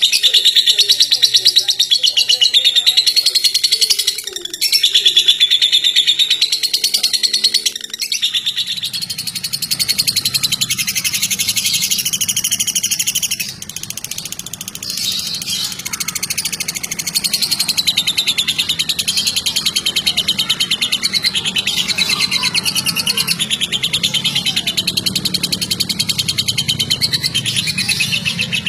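Caged lovebirds, one after the other, singing long, unbroken runs of rapid high chattering trills: the 'ngekek' song that contest lovebirds are judged on. The runs break only briefly, about 4, 8 and 13 seconds in.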